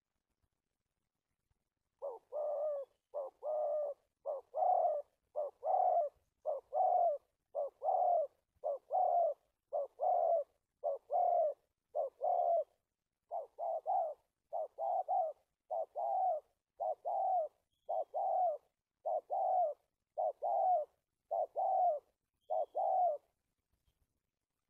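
Spotted dove cooing: a long run of repeated coos, about one a second, starting about two seconds in and stopping shortly before the end. It is a decoy bird's call of the stuttering kind prized by dove trappers.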